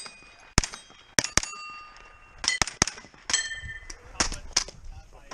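Pistol-caliber carbine firing a string of about a dozen shots in singles and quick pairs, with many shots followed by the ringing clang of hit steel targets, each plate ringing at its own pitch.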